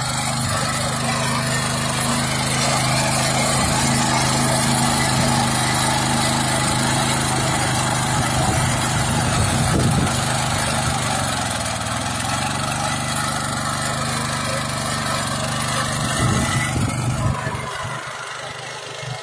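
Small engine of a walk-behind power weeder with a ridger attachment, running steadily under load as it pulls through the soil. Its speed dips briefly about two-thirds of the way through, then picks back up, and the sound grows quieter near the end.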